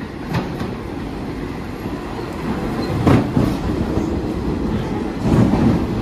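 R46 subway train arriving and rolling past close by: a steady rumble of steel wheels on rail that grows louder, with heavier clacks of wheels over rail joints about three seconds in and again near the end.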